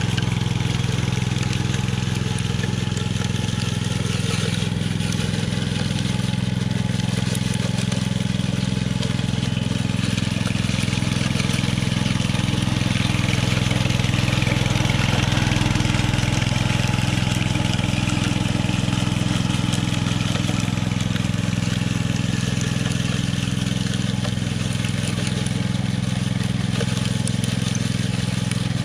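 Walk-behind concrete power trowel with its small gas engine running at a steady speed as its spinning blades finish the surface of a freshly poured concrete slab.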